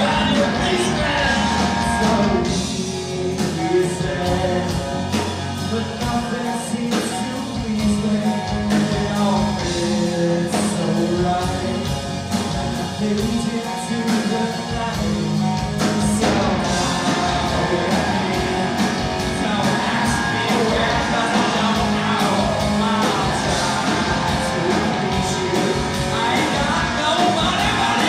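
Live heavy metal band playing: distorted electric guitar, bass guitar and a drum kit, with a male lead singer singing over them. The band thins out a couple of seconds in and comes back in full about halfway through.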